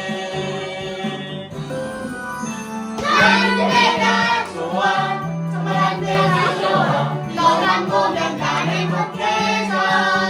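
Choir singing a children's song over instrumental accompaniment.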